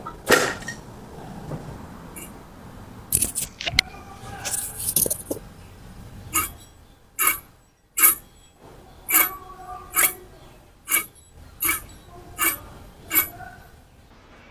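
Hammer blows on metal: a few scattered clanks and clinks of tools, then a steady run of about ten ringing strikes, a little under one a second, in the second half.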